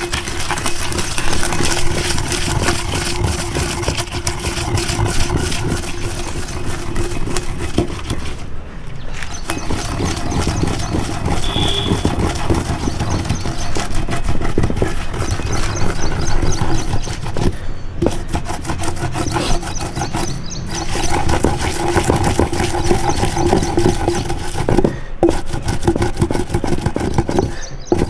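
Heavy wooden pestle grinding and rubbing soaked seeds and spices into a thandai paste in a stone mortar (kundi): a continuous rapid scraping with wooden knocks, broken by a few brief pauses.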